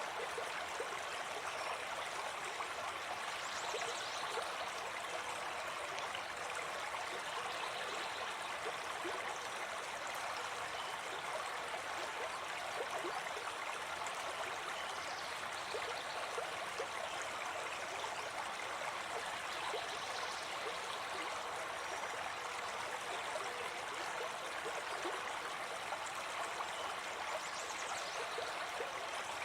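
Forest stream running steadily over rocks, a continuous babbling rush of water. Faint high bird chirps come through now and then.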